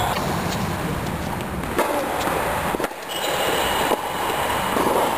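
Tennis rally: a few sharp knocks of the ball off racket strings and court, about a second apart, over a steady rumbling background noise.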